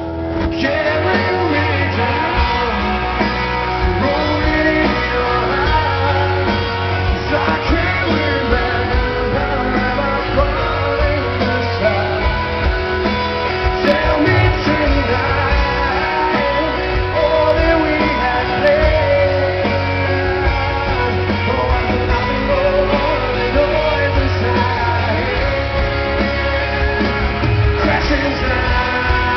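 A rock band playing live, with a male lead vocal singing over electric guitar and a heavy bass line.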